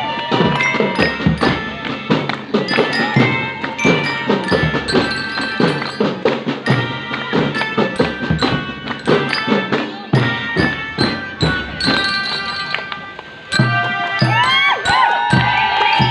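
A marching drum band playing: rapid drum strikes under a bright, bell-like melody. After a short dip about three-quarters of the way through, sustained sliding melody notes join in.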